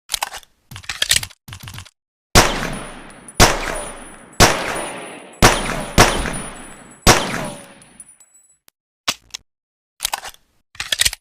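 Pocket pistol sound effect: a few metallic clicks of gun handling, then six shots about a second apart, each dying away in a ringing tail, then more clicks near the end.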